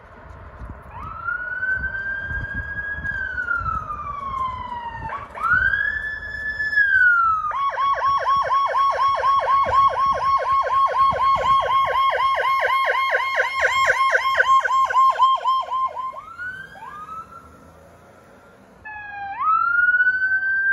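Electronic emergency-vehicle siren: a slow wail rising and falling twice, then a rapid yelp warbling several times a second for about eight seconds, then back to the wail near the end. A low rumble of traffic runs under the first part.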